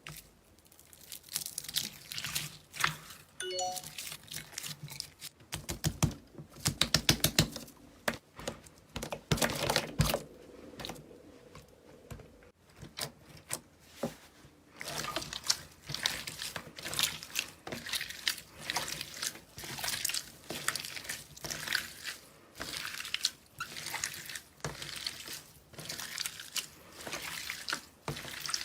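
Slime being worked by hand: a dense, irregular run of wet clicks and crackling pops, loudest in a quick burst about six seconds in.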